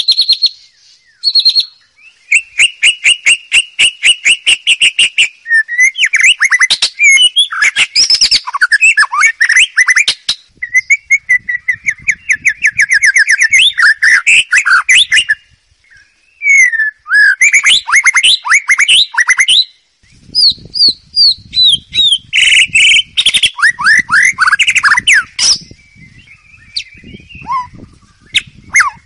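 White-rumped shama singing a loud, varied song of fast repeated notes, rapid trills and sweeping whistles, with a few short pauses between phrases.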